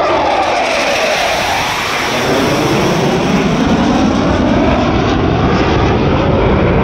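Military display aircraft flying past overhead: a loud, continuous roar whose pitch sweeps down near the start and then arcs back up as it passes.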